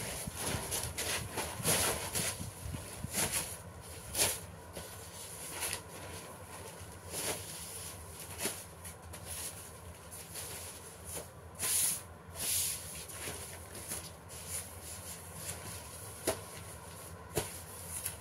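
Paper sheets rustling and being creased as they are folded by hand, in short irregular swishes over a low steady hum.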